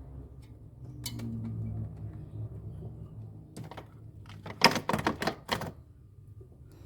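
Sharp clicks and scrapes of hand work on refrigerator parts, one click about a second in and a dense run of them from about three and a half to five and a half seconds in, over a faint low hum in the first half.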